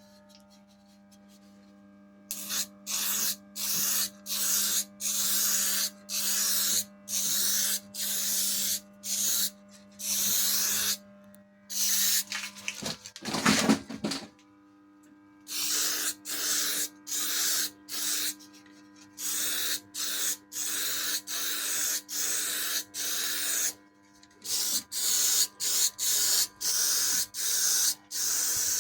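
Aerosol can of gloss black paint sprayed in short hissing bursts, roughly one a second, with a break about halfway through, coating bare repaired metal against rust.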